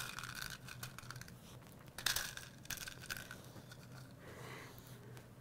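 Faint scratchy rustling and small clicks from hands working a plastic piping bag of frosting, with a slightly louder crinkle about two seconds in.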